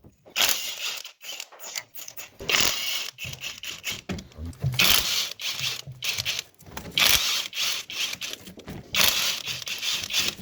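Hand tools working on engine parts during a teardown: repeated rasping strokes about every two seconds, with light metal knocks between.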